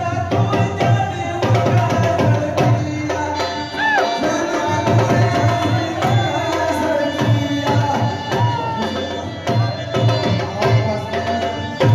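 Attan dance music: a driving drum rhythm with a wavering melody over it, the drumming dropping out briefly about four seconds in.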